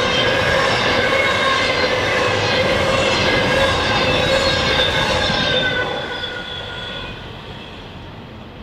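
Train cars rolling past with a steady high-pitched wheel squeal, several tones at once over the rumble of the wheels. About six seconds in it fades away.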